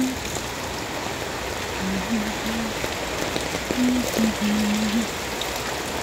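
Typhoon rain falling steadily on leaves, ground and roofs, a constant hiss. Short low steady tones sound twice over it, about two seconds and four seconds in.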